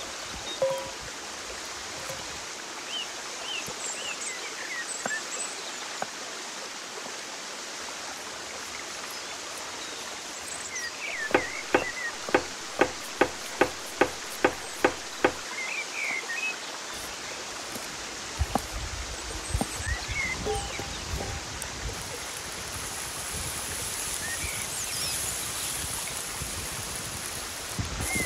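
Running stream with scattered bird chirps. Midway, a large knife chops parsley on a wooden cutting board: about ten even chops in four seconds. Near the end a high sizzle comes in as butter melts in a cast-iron skillet.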